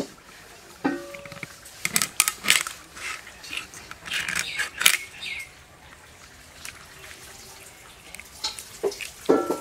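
Metal cooking utensils and dishes clinking and knocking in irregular clusters of sharp clanks. Some of the clanks ring briefly, and there is a quieter stretch past the middle.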